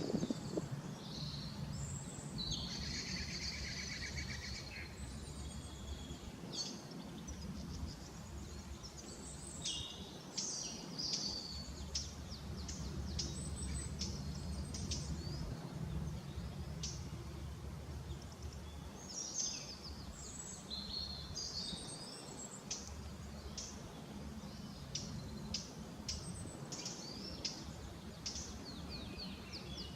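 Several small birds chirping and singing in short, repeated high calls and trills, over a steady low rumble.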